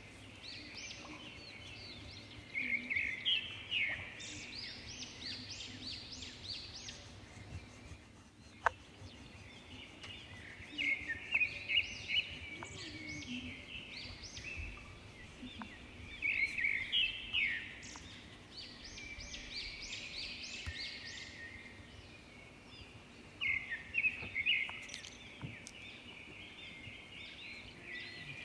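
Birds chirping in bursts of quick high notes, several clusters a few seconds apart, over a low background hum. A single sharp tap comes about a third of the way in.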